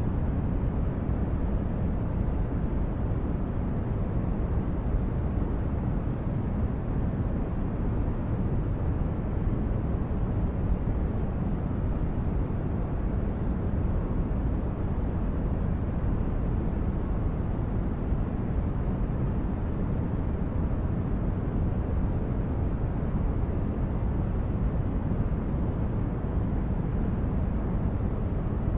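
Synthetic spaceship-interior ambience: a steady low rumbling hum like deep engine drone or brown noise, unchanging throughout.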